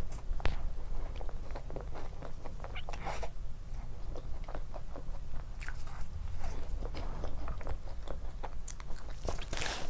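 Close-miked eating of soft foods: irregular wet mouth clicks, smacks and chewing, with a louder bite or smack near the end.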